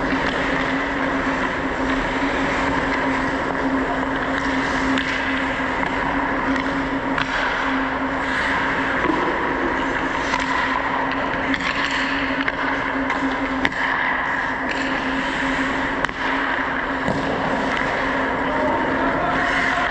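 Ice hockey skates scraping and carving on the ice over a steady hum, with two sharp stick-and-puck clacks about two-thirds of the way through.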